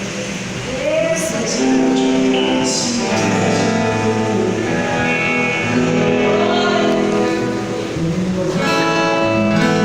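Live worship band playing a song's instrumental passage, with guitar prominent over sustained chords.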